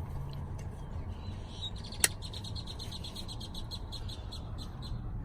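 A bird chirping in a quick run of short, high, evenly spaced chirps, about six a second, over a low steady rumble. A single sharp click comes about two seconds in.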